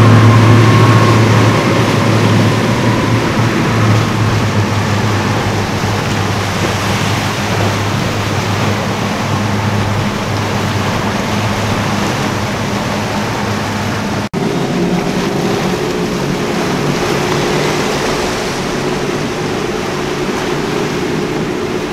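Center-console boats' multiple outboard motors running at speed, a steady engine drone over the rush of hull spray and waves. About two-thirds through the sound briefly drops out and a different, higher engine note from another passing boat takes over.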